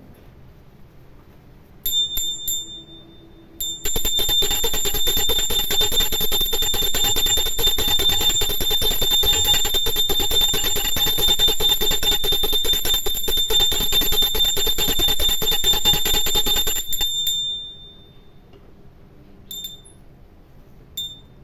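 Puja hand bell rung rapidly and without a break for about thirteen seconds, after a few short rings about two seconds in, then a couple of brief rings near the end.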